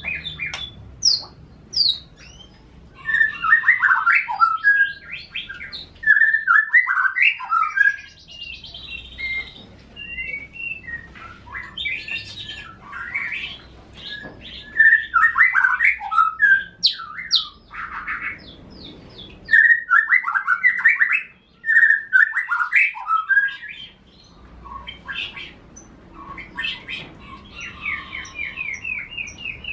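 Caged songbirds, a white-rumped shama and an F1 canary kept beside it as its song master, singing in loud bursts of varied, fast-changing phrases with short pauses between them, and a rapid repeated trill near the end.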